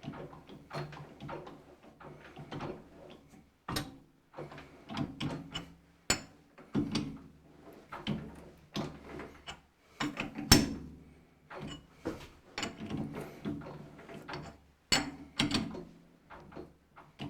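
A thread being tapped by hand on a metal lathe: a tap and tap wrench turned in short strokes, giving irregular metallic clicks and clunks, with one sharp knock about ten seconds in. The tap is nearing the bottom of the hole.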